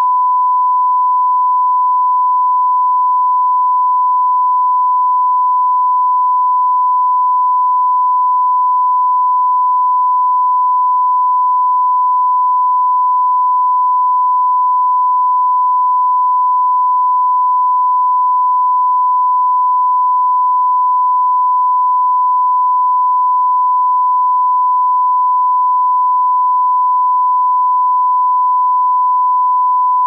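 Steady 1 kHz test tone, a single loud pure tone that never changes: the reference tone that runs with colour bars on a broadcast test pattern.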